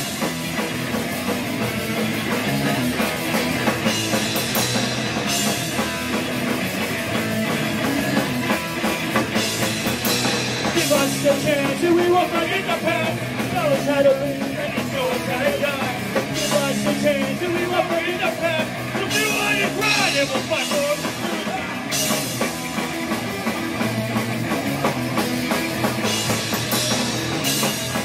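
Punk rock band playing live: electric guitar, bass guitar and drum kit, with repeated cymbal crashes.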